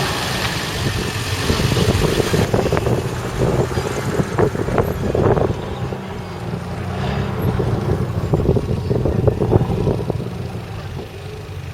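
Yamaha Rhino side-by-side's engine running as it drives over rough off-road ground, with irregular knocks and clattering on top.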